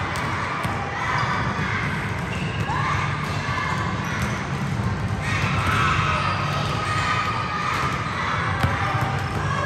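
Basketballs being dribbled on a gym floor, a run of irregular bounces echoing in the hall.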